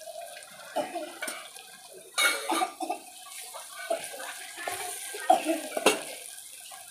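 Steel ladle stirring a thick masala in a steel pot, scraping and clinking against the pot's sides, with a sharp clink near the end.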